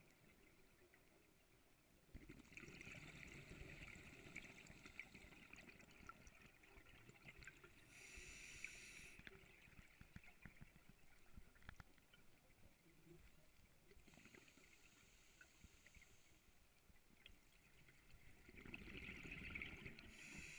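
Faint, muffled scuba breathing heard through an underwater camera housing: several bursts of exhaled regulator bubbles, with a couple of short hissing regulator inhales between them.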